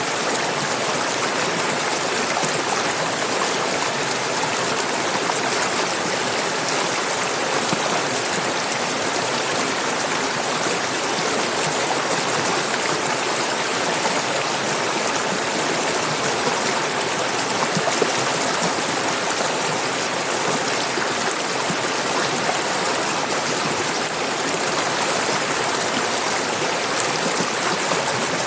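Clear mountain river flowing: a steady, even rush of running water over the streambed, without pause.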